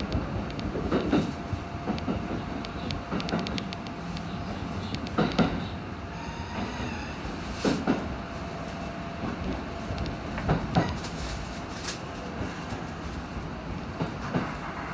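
Kintetsu commuter train running along the track, heard from inside the front car: a steady rumble with irregular sharp clicks and knocks as the wheels pass over rail joints and points, under a faint steady hum.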